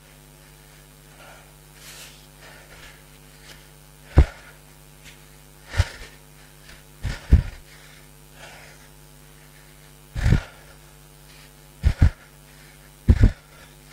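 Heavy, forceful exhalations of a cyclist straining on a spinning bike, blown straight onto a headset microphone. There are about half a dozen short puffs a second or two apart, some in quick pairs.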